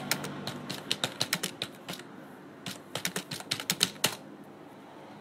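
Rapid clicking of typing in two bursts, the second running from about two and a half seconds in to about four seconds.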